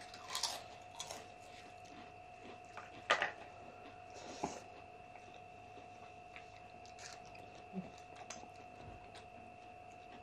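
A person chewing food close to the microphone, with a few short sharp crunches or clicks, the loudest about three seconds in. A faint steady whine runs underneath.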